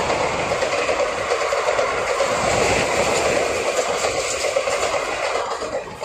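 Indian Railways passenger coaches running past at speed: a loud, steady rush and rattle of steel wheels on the rails.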